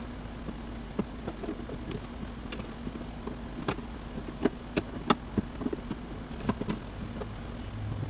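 Irregular light clicks and knocks of hands handling parts, a dozen or so spread unevenly, over a steady low hum.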